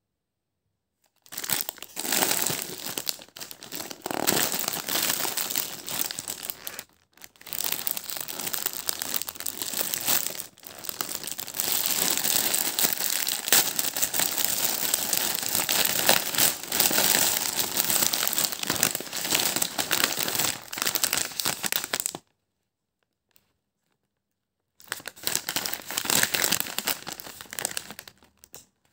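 Plastic snack packets crinkling and rustling as hands pull them open and handle them. It comes in a long stretch with a couple of brief breaks, stops for a few seconds, then starts again near the end.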